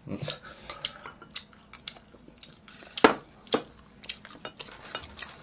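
Chopsticks clicking and scraping against plates and bowls while eating, with some chewing; a louder clack about three seconds in and another just after.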